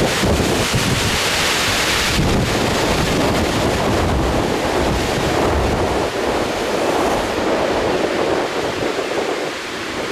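Strong gusty wind buffeting the microphone, with a loud gust in the first couple of seconds.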